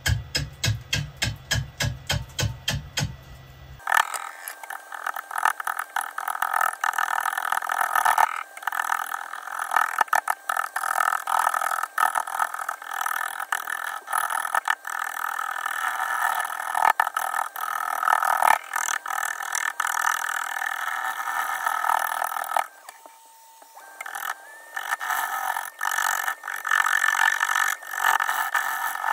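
Turning gouge cutting into an ash platter blank spinning on a wood lathe. For the first few seconds it knocks in a quick, even rhythm, about five a second, then settles into a steady continuous cut that stops briefly about two-thirds through and starts again.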